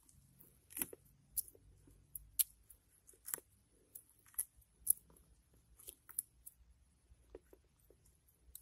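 Faint, irregular clicks and snaps of fingers picking tangled waterweed off the small propellers of a plastic-tub model boat.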